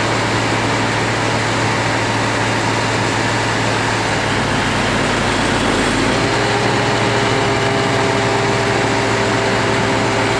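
Heavy farm machinery at work in a corn silage harvest, forage harvester and tractor engines running steadily with a constant low hum. About six seconds in, a second, higher engine drone joins.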